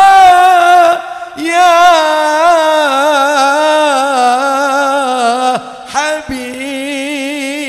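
Male vocalist singing an Arabic sholawat melody in long, ornamented held notes with vibrato. The line breaks off briefly about a second in and again near six seconds before the voice resumes.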